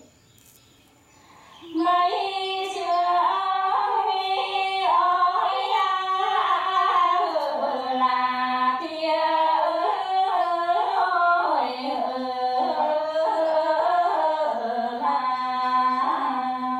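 Two women singing a quan họ folk duet together, unaccompanied, in long held and ornamented notes. The singing comes in about two seconds in, after a brief pause.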